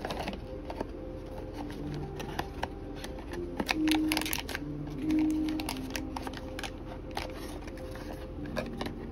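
Small cardboard blind-box carton being opened by hand: a run of light clicks, taps and scraping paper as the flaps are worked open and a paper card is slid out, loudest about four and five seconds in. Soft background music runs underneath.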